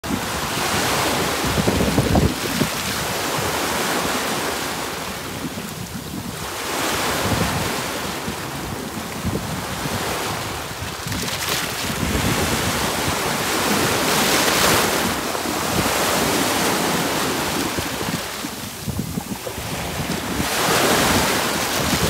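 Small sea waves washing in over a pebble beach, the surf swelling and easing every few seconds, with wind buffeting the microphone.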